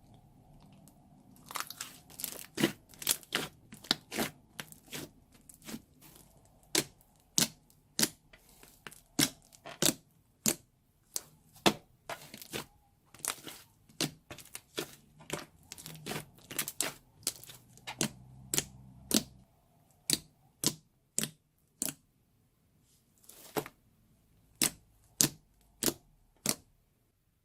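Slime squeezed out of a piping bag, making sharp, irregular crackling pops, about one or two a second.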